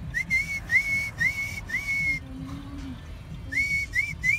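A whistle blown in short, high toots, each sliding up into a steady note. There are four, then a pause of about a second, then three quicker ones.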